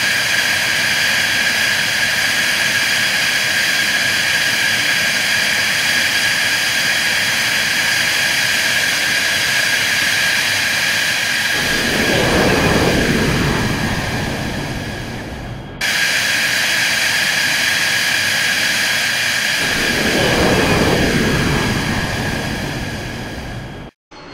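Fighter jet engine sound: a steady high-pitched whine, with a deeper rumble that swells and fades as the jet passes, twice. The sound breaks off abruptly and restarts in the middle, and cuts out briefly just before the end.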